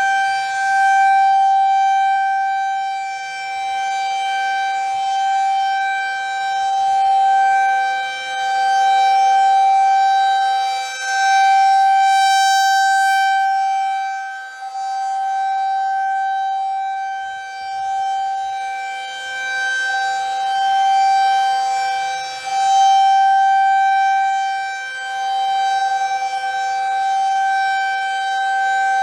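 Federal Signal 2001 rotating tornado siren sounding a steady single-pitch wail at full speed. Its loudness swells and fades every two to three seconds as the rotating horn sweeps past.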